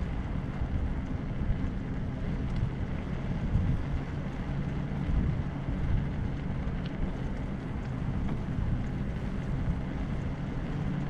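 Wind rushing over the microphone of a bicycle-mounted camera while riding along a paved path, a steady low rumble with a faint hum underneath from the bicycle rolling.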